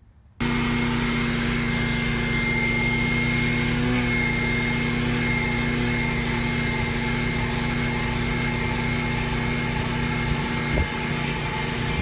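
RoadPro 12-volt wet/dry canister vacuum switching on about half a second in and running steadily, a motor hum with a high tone over the rush of air, as its nozzle is worked over a carpeted floor mat. A light knock near the end.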